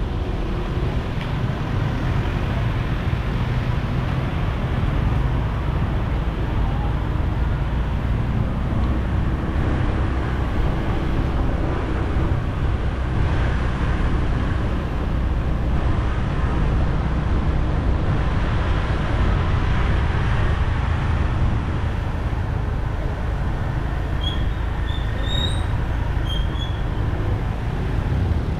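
A motor scooter being ridden: steady engine and road noise with a heavy low rumble. A few short high chirps come near the end.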